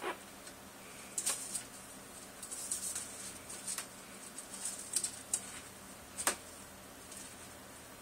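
Scattered light clicks and scratches, about a dozen at irregular intervals, as a blue-crowned conure moves about on its wooden window perch.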